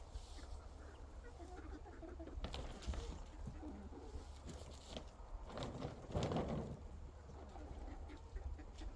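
Chickens making faint, soft low clucks and murmurs, with a louder rustling noise about six seconds in.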